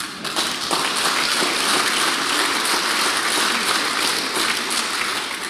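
Audience applauding: a dense, steady clatter of many hands that swells within the first second and starts to die away near the end.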